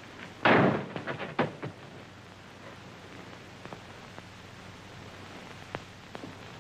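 A single loud bang about half a second in, followed by a few lighter knocks over the next second, then a few faint clicks over steady film-soundtrack hiss.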